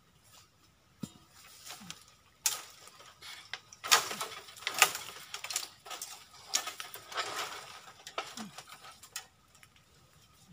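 Leafy branches rustling and crackling in irregular bursts as they are pulled and moved by hand, starting about two and a half seconds in and dying away after about nine seconds.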